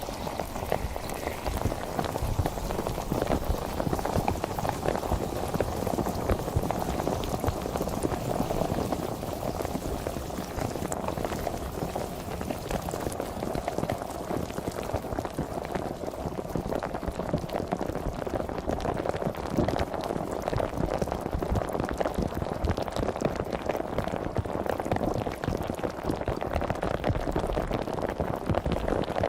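Sparkling water fizzing: a steady, dense crackle of countless small bubbles popping.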